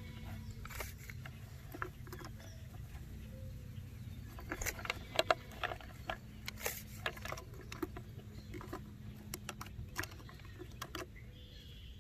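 Hands working a tape measure and a felt-tip marker against a plastic bucket: scattered light taps, clicks and scratches, busiest in the middle, over a faint steady low hum.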